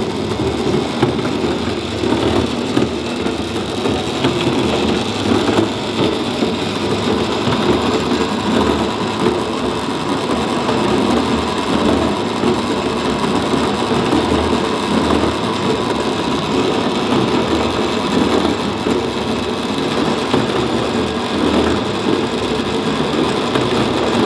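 Homemade chain-driven 55-gallon-drum cement mixer, powered by a treadmill motor, running with a steady, rough mechanical rattle and whir as the drum turns.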